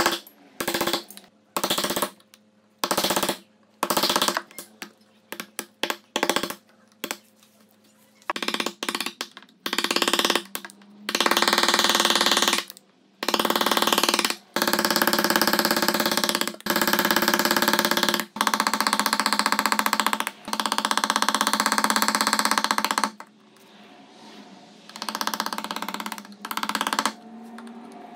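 Bench chisel pushed by hand through hardwood to pare out dovetail waste: a run of short scraping strokes, then longer strokes of a second or two each from about eight seconds in, with a few quieter ones near the end.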